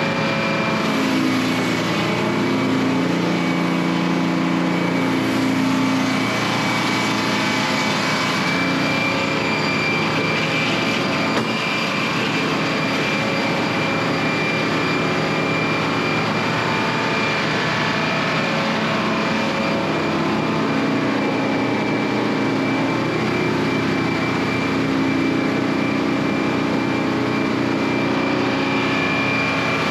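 An engine running steadily at an even level, with a constant high tone over it; it is the machine being used to move the oak logs.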